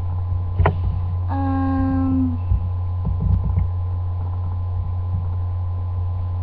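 Steady low electrical hum. A sharp click comes just under a second in, and a short held tone with overtones lasts about a second, starting about a second and a half in.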